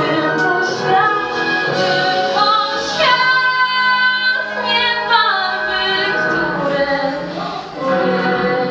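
A woman singing over an instrumental backing track, holding one long note in the middle.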